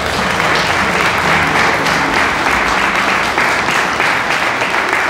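Audience applauding: many hands clapping together steadily, with single claps standing out more near the end.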